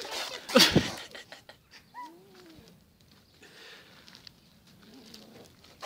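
A short loud scraping noise about half a second in, then a single cat meow about two seconds in, one call rising and falling in pitch, followed by faint shuffling.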